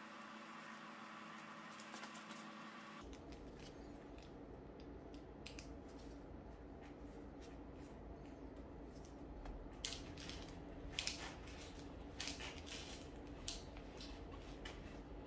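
Light ticks and clicks of a thin steel shift cable being threaded and fitted into a bicycle handlebar twist shifter by gloved fingers, with several sharper clicks in the second half. A faint steady hiss stops about three seconds in.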